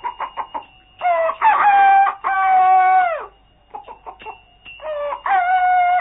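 Rooster crowing twice: a few short clucks, then one long crow about a second in, and a second crow beginning near the end.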